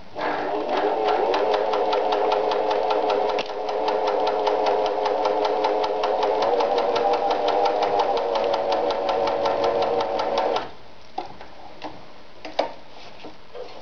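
Riccar 906E electronic sewing machine stitching cotton fabric: motor hum with a rapid, even needle clatter, easing briefly about three and a half seconds in and stopping about ten and a half seconds in. A few light clicks follow.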